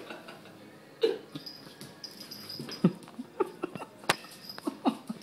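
Two kittens play-fighting on a vinyl floor: irregular short thumps and taps from paws and bodies, with one sharp click about four seconds in.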